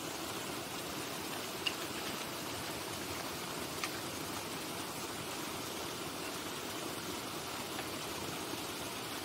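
Irrigation water running steadily over the garden ground, a continuous rush, with two brief light clicks about two seconds apart.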